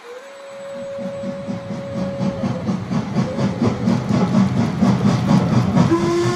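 Model train sound effects: one long whistle blast, then a rhythmic running sound that grows louder as the train approaches, with a second, shorter whistle near the end.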